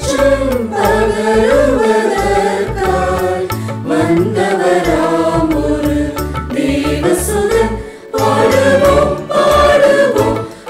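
Mixed choir of men's and women's voices singing a Tamil Christmas carol in harmony over a low bass line. There is a brief break about eight seconds in before the next phrase starts.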